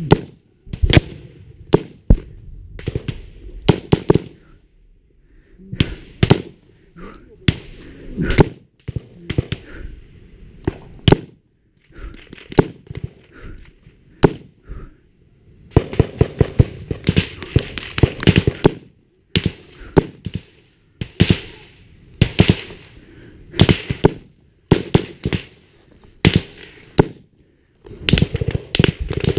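Small-arms gunfire in irregular volleys of sharp, loud shots, bunched thickest about halfway through and again near the end.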